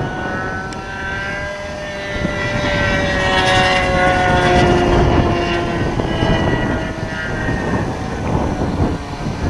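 Engine of a GP Revolver .60 radio-controlled model airplane running in flight, a steady high drone whose pitch slowly shifts and sags as it flies, over heavy wind buffeting the microphone.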